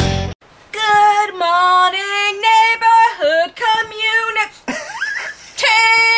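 Guitar music cuts off abruptly, then a woman sings unaccompanied in a few short phrases and ends on one long held high note near the end.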